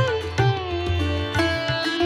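Background music: a plucked-string melody with notes that bend in pitch, over a steady low drone.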